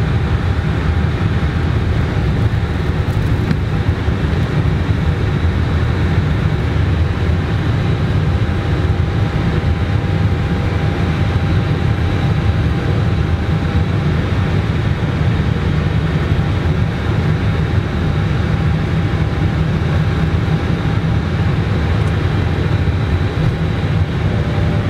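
Steady cockpit noise of an Airbus A320 rolling on the ground after landing: a loud low rumble with hiss above it and faint steady tones running through it.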